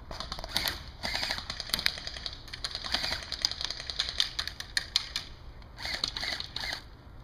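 Airsoft electric guns firing on full auto: rapid bursts of sharp clicks, densest over the first five seconds and tailing off near the end.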